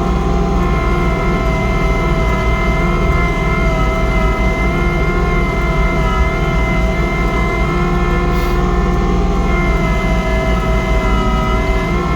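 Kubota compact diesel tractor running steadily with its PTO-driven snowblower engaged, a steady whine over the engine as it works through heavy, wet snow.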